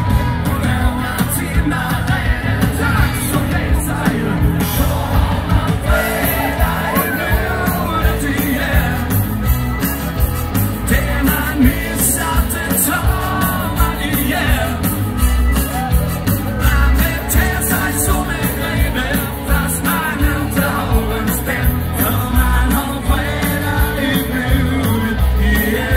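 Live band music played loud over a PA, with singing and a steady beat; the crowd yells along.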